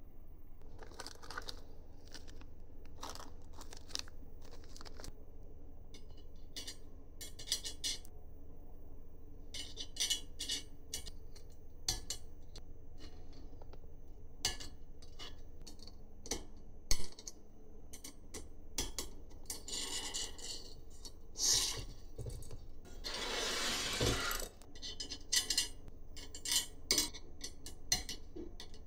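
Hand work on 3D printer kit parts and tools: scattered clinks, taps and scrapes of small hard pieces being handled, with one longer noisy scrape about two-thirds of the way through.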